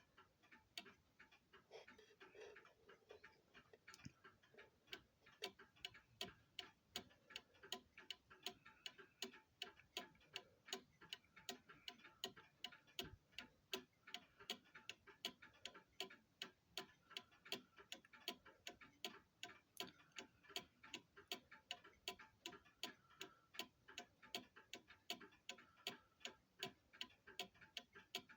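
Waterbury clock movement's escapement ticking as it starts from its minimum running arc: a few faint, uneven ticks at first, then, about four seconds in, a steady, even ticking that grows a little stronger and holds.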